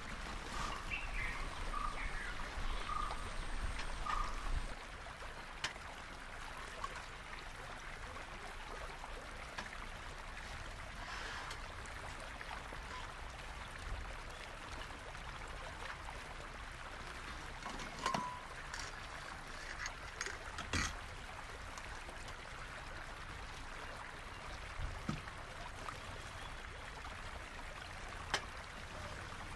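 Steady rushing of a nearby stream, with a few soft knocks and rustles as camping gear is taken out of a backpack and set down on a folding aluminium table.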